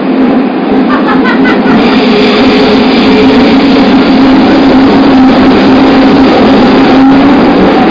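JR Kyushu 305 series electric train running in the subway tunnel: steady wheel and track noise, with a motor hum held at one pitch from its permanent-magnet synchronous drive.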